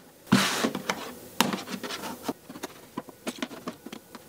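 A cordless drill with a spade bit briefly bores into a plastic gallon milk jug near the start. A utility knife then cuts the jug's thin plastic in a series of irregular scratchy clicks.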